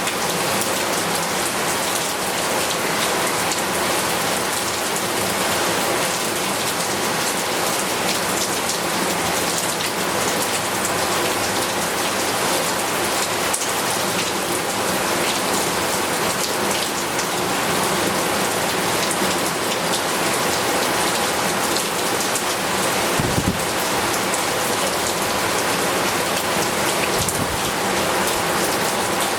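Heavy rain falling steadily, a dense continuous patter of drops on surfaces, with two brief low thumps about two-thirds of the way through and near the end.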